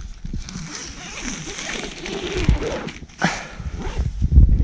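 Door zipper of an MSR backpacking tent being pulled open, with the nylon tent fabric rustling.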